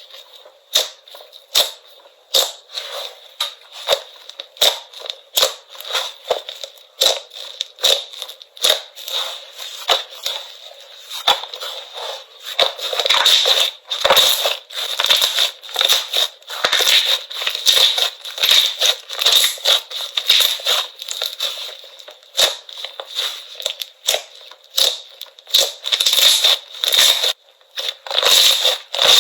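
Slime being pressed and poked by hand, giving sharp popping and crackling clicks, about one or two a second at first and coming thicker and faster about halfway through.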